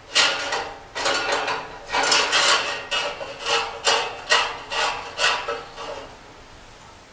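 Metal parts of a portable multi-purpose cooking stove clanking as they are fitted together: about a dozen irregular knocks and rattles with a slight metallic ring, stopping about six seconds in.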